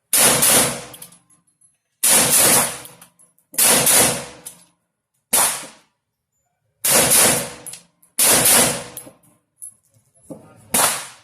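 Seven shots from a home-built AR-15 pistol, fired one at a time about one and a half to two seconds apart. Each sharp report rings out over about a second.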